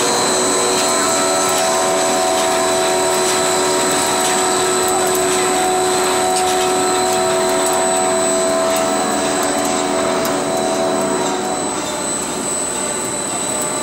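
Yung Hua SM6015 steel coil slitting line running as it slits cold-rolled steel strip and recoils the strips: a loud, steady machine noise with several held whining tones. It eases off slightly about ten seconds in.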